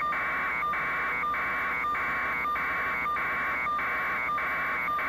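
Electronic buzzing, pulsing evenly a little under twice a second at a steady level.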